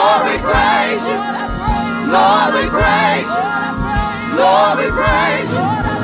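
Live gospel praise music: several singers with bending, sliding vocal runs over steady held chords and a regular kick-drum beat.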